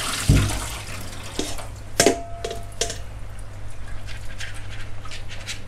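Water draining and dripping from a colander of rinsed raw shrimp into a steel sink, with a dull thump just after the start and a metal clank with a brief ring about two seconds in, followed by two lighter knocks as the stainless steel bowl is handled.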